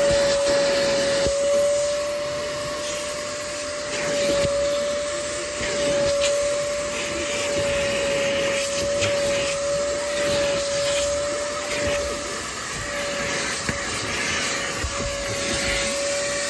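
Kiwi upholstery washing machine, a spray-extraction vacuum, running. It makes a steady high motor whine over a rushing suction hiss that varies a little in strength.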